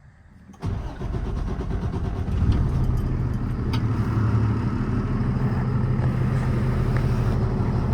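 A 2018 International 4400's 6.7 Cummins ISB inline-six diesel starting about half a second in, then running at a steady idle.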